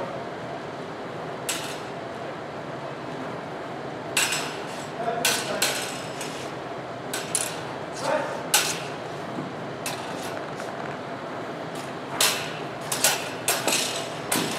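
Steel rapier blades clashing: scattered clusters of sharp metallic clicks and clinks, some briefly ringing, over steady room noise in a large hall.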